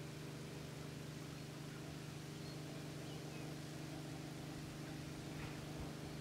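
A motor running steadily in the background: a low, even, pitched hum that does not change.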